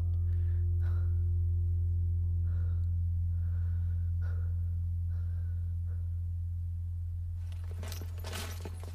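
A steady low drone from the film score, with a higher held tone that stops about three seconds in and a few faint short breaths over it. From about seven and a half seconds in, a dense clatter of footsteps and shuffling.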